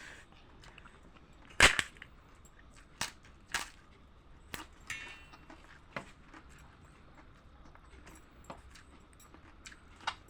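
Irregular sharp clicks and knocks, the loudest about one and a half seconds in, with a brief high squeak around five seconds in.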